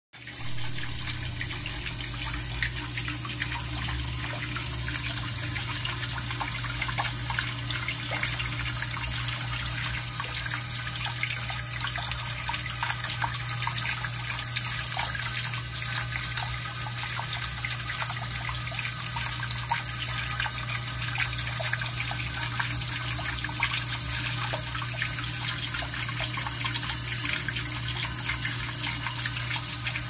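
Steady rushing of running water, with scattered small clicks through it.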